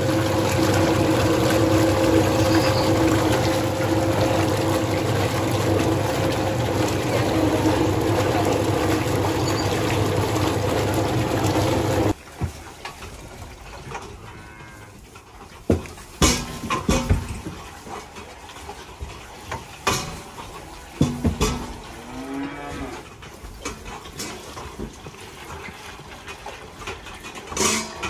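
A milk-mixing vat's stirrer motor runs with a steady hum for the first twelve seconds and cuts off suddenly. Then Holstein calves moo a few times amid metallic clanks of steel feeding bowls and the milk cart as calves are fed milk replacer.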